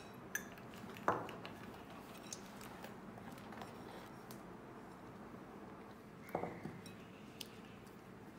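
A spoon knocking and clinking against a bowl while thick whipped coffee is scooped out: a few scattered knocks, one about a second in and a clink with a brief ring about six seconds in, over a faint steady hum.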